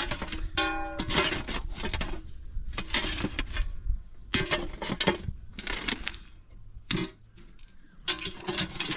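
Hard objects clattering and knocking in irregular strokes, with a brief ringing tone about half a second in and a quieter spell near the end.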